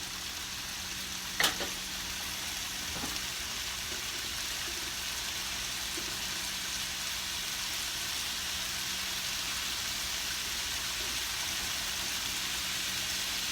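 Seasoned chicken pieces browning in a hot pan with a steady sizzle, and a single utensil clink about a second and a half in.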